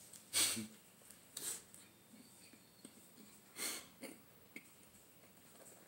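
A man eating a mouthful of hot dog topped with french fries, with four short, noisy breaths through the nose while he chews.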